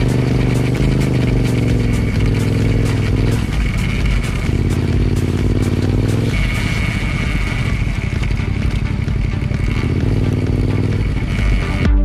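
Off-road motorcycle engine heard up close through its exhaust silencer while riding. Its note drops and picks up again several times as the throttle is eased and opened.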